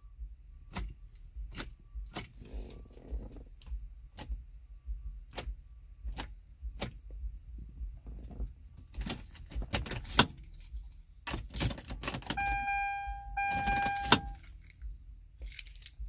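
Key ring jangling and the key clicking in the ignition of a 2009 Hyundai Santa Fe as it is turned again and again, with no cranking from the starter: the no-crank fault here comes from a faulty neutral safety switch. Near the end a steady electronic warning tone sounds twice, about a second each time.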